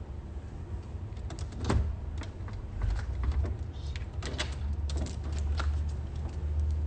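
A quick string of clicks and knocks over a steady low rumble, as of things being handled and moved.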